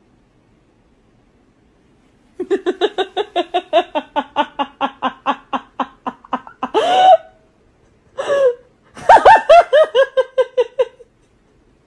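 A person laughing hard: a long run of rapid, even "ha" pulses that slowly drop in pitch, then two louder, higher cries and a second, higher-pitched burst of laughter near the end.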